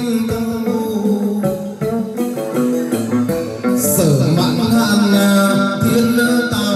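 Chầu văn ritual music: a plucked lute, the đàn nguyệt moon lute, playing with steady rhythmic percussion.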